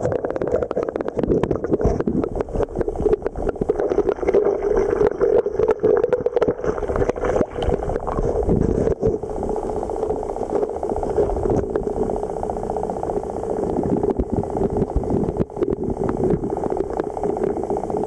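Underwater sound picked up by a submerged camera in a river: a steady hum with many small clicks and knocks of gravel and stones being moved by hand while digging a target out of the riverbed.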